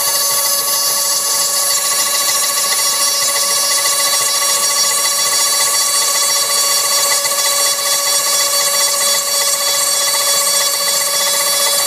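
DIYLILCNC hobby CNC router cutting a cheese follower: its spindle runs steadily with a high whine over a constant hiss of cutting.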